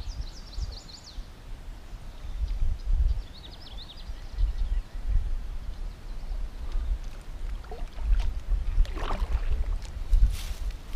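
Wind gusting on the microphone as a low, uneven rumble while a kayak moves along a marshy creek. A bird sings short high trills twice, once at the start and again about three seconds in.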